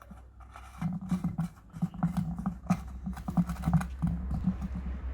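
Air filter housing lid being handled and turned into place to line up its alignment marks: scraping and many small clicks over a low hum, cutting off abruptly at the end.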